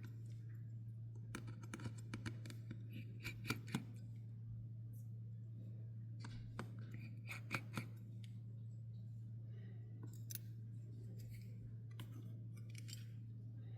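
Faint, scattered small clicks and ticks of precision repair tools working inside an opened iPhone 13 Pro Max during disassembly, in irregular clusters, over a steady low electrical hum.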